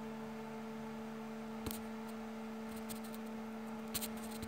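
Quiet small-room tone with a faint steady hum at two pitches, and a few soft clicks: one about one and a half seconds in, others near the end.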